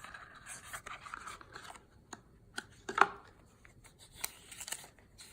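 A small cardboard product box and its paper inserts being handled and opened: soft rubbing and scraping with scattered light clicks, and one sharper tap about three seconds in.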